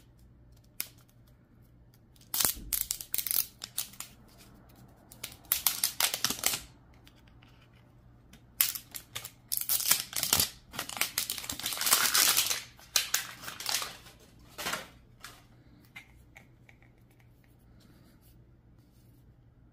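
The wrapper of a small plastic toy capsule being slit with a pointed metal tool and peeled off by hand: crinkling and tearing in several bursts, the longest and loudest around the middle, with short quiet pauses between.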